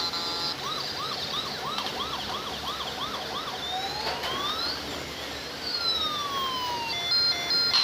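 Electronic police siren of a toy police car. It opens with short beeping tones, then gives a run of quick yelps, about three a second, then a slower rising and falling wail, and beeps again near the end.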